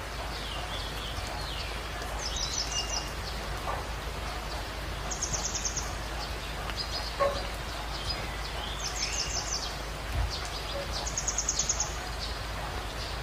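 Birds singing over a steady hiss: one bird's short, rapid, high trill comes again every few seconds, with a few shorter chirps between.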